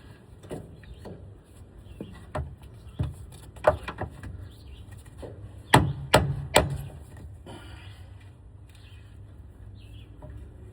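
Irregular sharp metal knocks from tools striking and prying at a Freightliner M2 steering shaft U-joint yoke that is stuck on its splined shaft, with three loud blows in quick succession about six seconds in.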